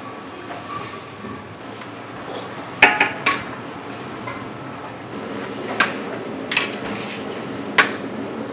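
Stir-frying in a giant wok: a metal utensil strikes and scrapes the wok in scattered sharp clanks while garlic, onion and meatballs fry in it over a steady hiss.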